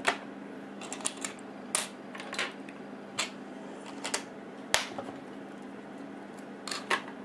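Plastic Lego bricks clicking and clattering as they are handled on a table and pressed together: about a dozen sharp, irregular clicks over a steady low hum.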